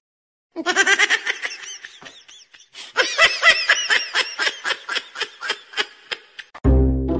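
Human laughter: high-pitched giggling in quick repeated bursts, in two long runs. Music starts near the end.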